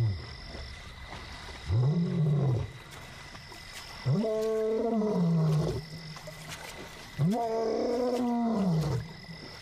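Young male lion roaring: three long moaning calls, each rising then falling in pitch, the second and third longer than the first. The lion is calling to locate his brother, a member of his two-male coalition.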